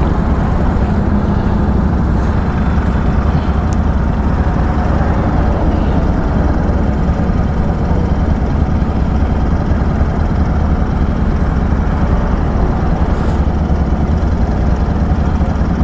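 Superbike being ridden at a steady pace: engine and road noise under a heavy, steady rush of wind on the rider's microphone, with no revving.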